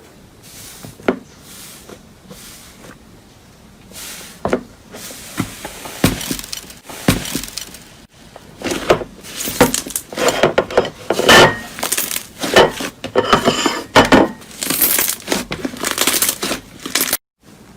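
Close-up crisp crunching and crackling of something brittle being crushed, a few separate sharp clicks at first, then dense crackles from about halfway, cutting off suddenly near the end.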